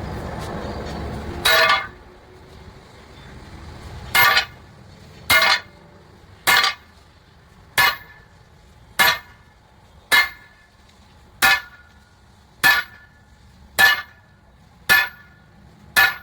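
Hammer striking steel at a steady pace, about a dozen blows a little over a second apart, each with a short metallic ring. A low rumble runs through the first second and a half, before the first blow.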